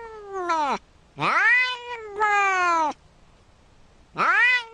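A grey cat giving long, drawn-out meows that rise and then fall in pitch. One meow tails off at the start, a long meow with a short break follows about a second in, and another begins near the end.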